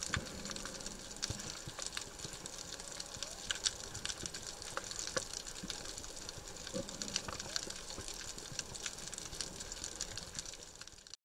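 Underwater reef noise: a dense, steady crackle of tiny clicks over a wash of water, cutting off abruptly near the end.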